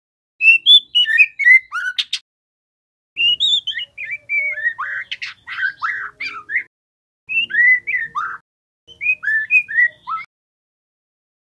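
Young white-rumped shama singing: four bursts of fast, warbling whistled notes sliding up and down, with short silent gaps between them. A single sharp click comes after the first burst.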